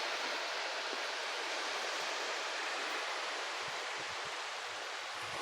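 Sea waves on a beach: a steady rushing hiss of surf washing in, with a few faint low thumps in the second half.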